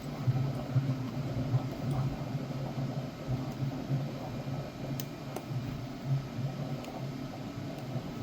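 Steady low mechanical hum with a few faint light clicks about five seconds in.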